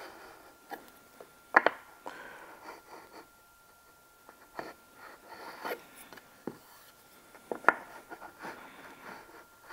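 Star-M steel edge trimmer shaving a small chamfer along the edge of a jarrah hardwood worktop: faint scraping strokes of the blade on the wood with scattered sharp clicks, two of them louder.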